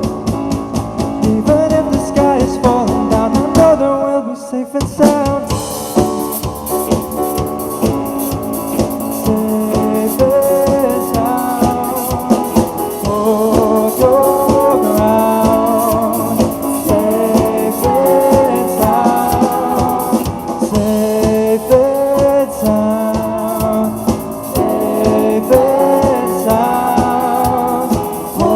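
Band music with a sung melody over a full drum kit. The playing briefly drops out about four seconds in, then comes back in.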